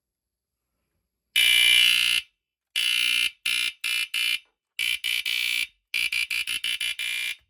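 BRK 1769 AC-I smoke alarm's horn sounding: a high-pitched beep of under a second, then a string of shorter beeps of uneven length that turn into quick stutters near the end.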